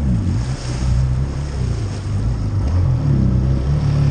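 Two-stroke engine of a 2000 Sea-Doo GS personal watercraft running under way, its pitch dipping and rising unevenly, with water rushing along the hull.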